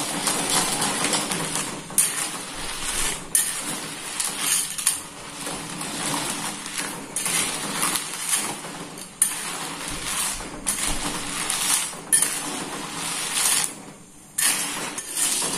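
A spoon stirring a pot of snail and coconut-milk curry, scraping and clinking against the pot in repeated strokes about once a second. The curry is being stirred after the coconut milk goes in, to keep the coconut milk from splitting.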